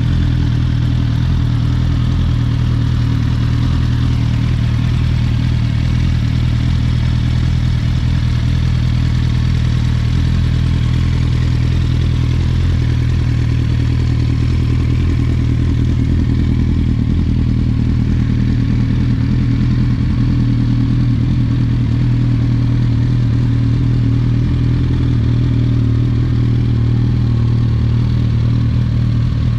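Yamaha R1 RN19 crossplane inline-four engine in a Raptor quad idling steadily through its twin exhausts, with no revving.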